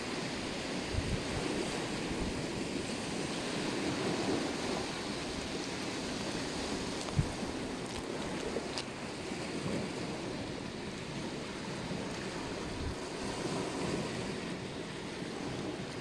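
Sea surf washing in over rocks and pebbles on a stony shore, a steady wash that swells and eases with each wave, with wind buffeting the microphone. A single short click about seven seconds in.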